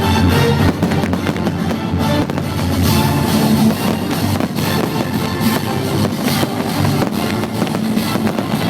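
Rock music with drums and guitar plays over a fireworks display, with firework bangs and crackles scattered through it.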